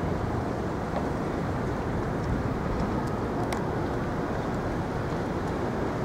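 Steady outdoor ambient noise, an even low rumble with a few faint ticks.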